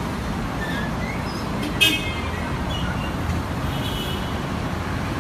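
Steady low rumbling background noise with faint voices, and one brief, sharp high-pitched tone about two seconds in.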